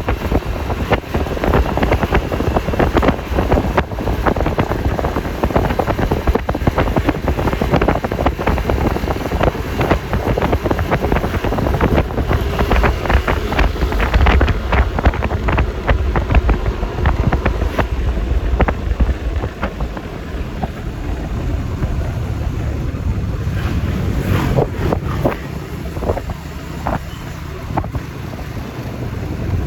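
Wind buffeting the microphone over the engine and road noise of a Yamaha Lexi LX 155 scooter being ridden. The noise eases somewhat about two-thirds of the way through, then picks up again near the end.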